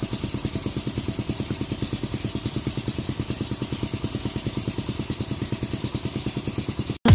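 An engine running steadily with an even, rapid thudding beat, about a dozen beats a second. It cuts off abruptly near the end.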